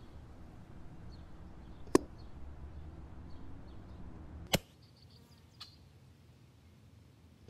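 Two sharp air rifle shots about two and a half seconds apart, over a faint low background.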